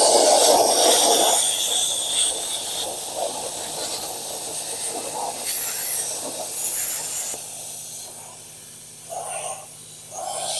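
Plasma cutter hissing as it cuts sheet steel, a steady hiss that starts abruptly, changes in short stretches, and drops to a quieter level about seven seconds in with a few brief louder spurts near the end.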